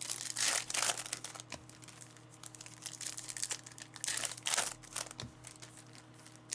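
Plastic wrapping on trading-card boxes or packs crinkling and tearing in several separate bursts, over a faint steady hum.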